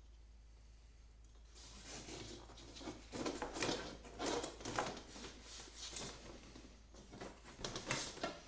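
A large plastic panel being handled and worked into the grooves of a PVC enclosure frame: irregular scraping, rustling and light knocks, starting a little over a second in.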